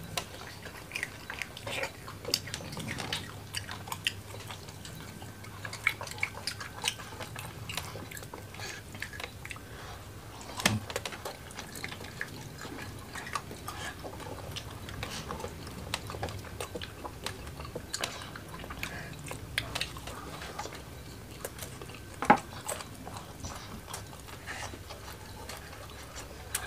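Close-miked eating sounds of chicken and rice eaten by hand: chewing, wet mouth smacks and small sticky clicks, with two louder sharp clicks, about ten seconds in and again about twenty-two seconds in.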